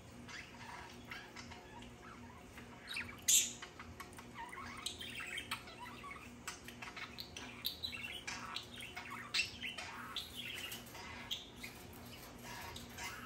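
Budgerigars chattering: a busy stream of short chirps and warbles, with one loud, sharp squawk about three seconds in.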